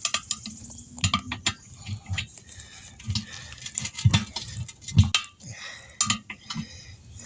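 Irregular metal clinks and knocks of a tire being worked back onto a 20-inch wheel rim by hand, with heavier thumps about four and five seconds in.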